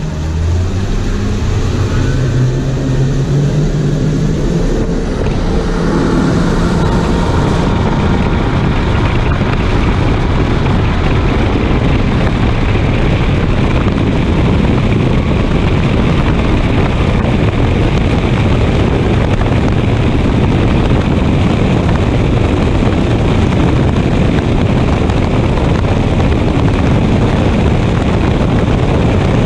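Triple Mercury outboard engines accelerating at full throttle from slow speed. Their pitch climbs over the first five or six seconds, then they settle into a steady high-speed roar, running at about 80 mph, with the rush of wind and water.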